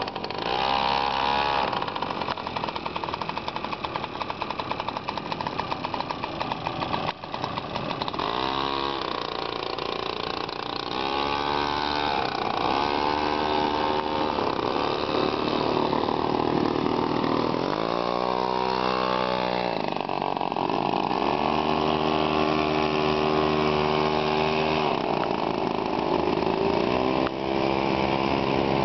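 Small go-kart engines running, revving up and easing off again several times, rising and falling in pitch.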